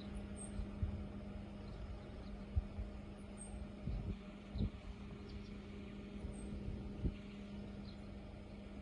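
Outdoor seaside ambience: wind rumbling on the microphone in uneven low gusts over a steady low hum, with a few faint high chirps.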